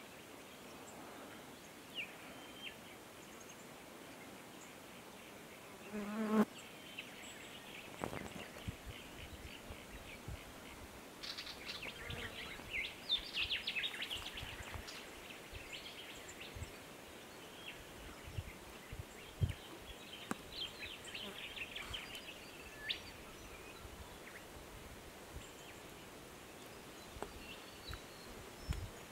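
Outdoor bush ambience of insects buzzing, with rapid chirring trills coming and going. A short low call sounds once about six seconds in, and soft low thumps are scattered through the rest.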